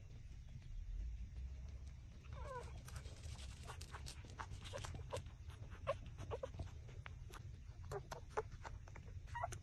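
Six-day-old puppies nursing: a run of quick wet sucking clicks and smacks starting about two and a half seconds in, with a short puppy squeak or whimper just before it and another near the end.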